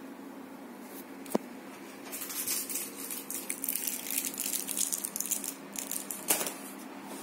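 Irregular crinkling, rustling noise over a steady low hum, with a sharp click about a second in and another near the end.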